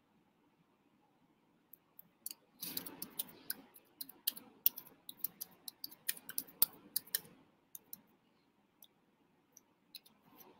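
Faint, irregular clicking of keys being pressed. After a couple of nearly silent seconds comes a dense run of clicks for about five seconds, thinning to a few scattered clicks near the end.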